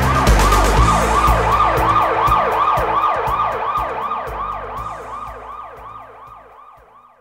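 Song outro with a fast-warbling siren effect, rising and falling about three times a second over the band's beat. The drums and bass stop about four seconds in, and the siren fades out alone.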